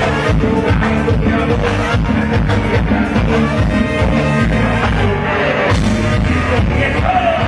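Live technobanda music played loud: saxophones and brass over bass and drums at a steady dance beat.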